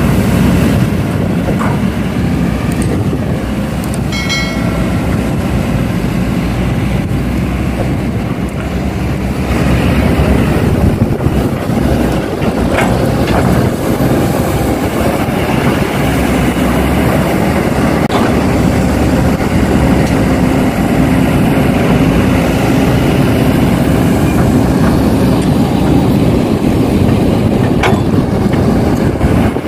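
Heavy diesel engines of an excavator and dump trucks running steadily under load while soil is loaded. A few short knocks come through, and a brief pitched tone sounds about four seconds in.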